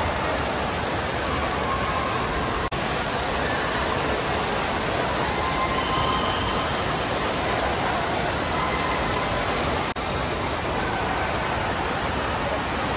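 Steady rush of spraying and splashing water from splash-pad fountain jets, with a faint din of distant voices; two brief dropouts break it.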